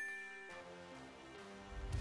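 A bell-like chime rings out and fades, the signal that the answer timer has run out, over soft background music. Near the end a rush of noise swells up.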